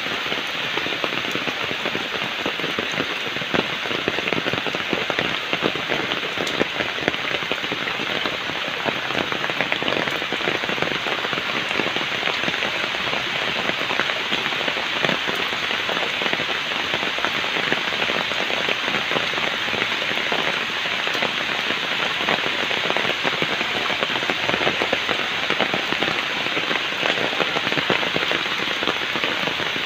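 Steady rain falling, made up of many separate drop hits close by.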